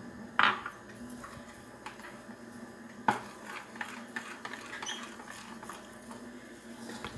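Metal spoon stirring wheat flour into batter in a glass bowl, with soft scraping and scattered clinks of the spoon against the glass. The loudest clink comes about half a second in, with another about three seconds in.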